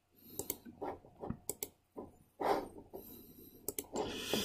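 Scattered short clicks of a computer mouse and keyboard being worked: a few in the first second and a half, and two more close together near the end.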